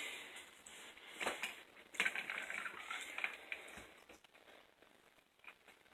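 Faint scraping, clicking and rustling of a spoon working a thick cooked-sugar mixture in a bowl, busiest in the first few seconds and dying away after about four seconds.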